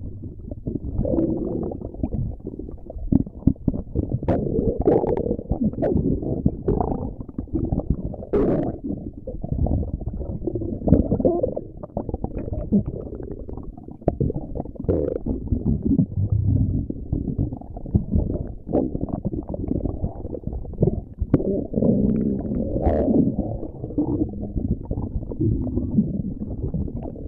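Stomach growling: a continuous, irregular low gurgling and rumbling, with scattered short sharp pops.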